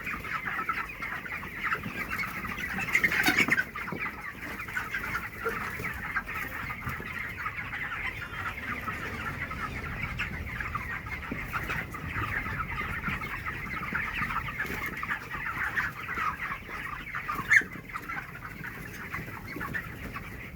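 A flock of 25-day-old chickens calling all together in a dense, continuous chatter of short peeps and clucks. The calls swell louder for a moment about three seconds in, and one sharp, louder note stands out near the end.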